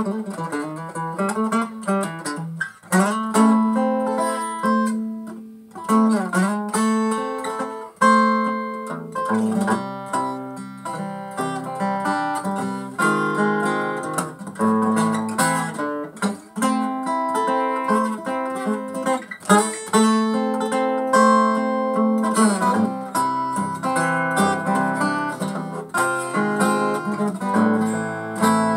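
Takamine EF360STT steel-string acoustic guitar, its sides cracked, playing a blues tune with picked notes and strummed chords. A few notes are bent in pitch.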